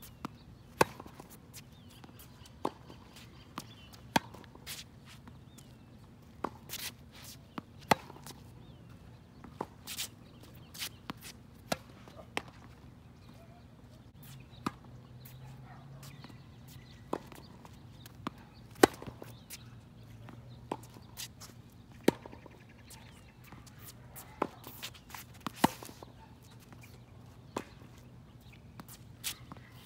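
Tennis ball rally on a wet hard court: sharp pops of balls struck by rackets and bouncing, one every second or two, with a few quick double hits.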